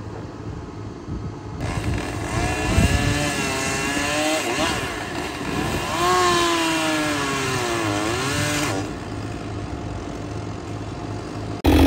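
Chainsaw cutting into a fir tree, its engine pitch sagging and recovering as the chain loads up in the wood, over a steady low engine hum. Near the end a much louder engine comes in abruptly.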